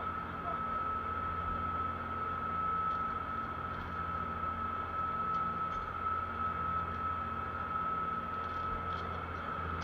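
A fishing boat's engine running steadily: a constant low hum with a steady high-pitched whine over it.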